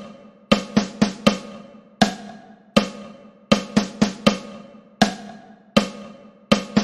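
Snare drum playing a steady exercise of quarter notes with one eighth-note triplet in each bar, about 80 beats a minute. Each stroke is crisp and dies away before the next.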